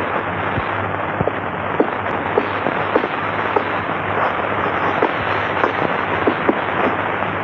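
Loud, steady crackling hiss with many irregular small pops over a low hum.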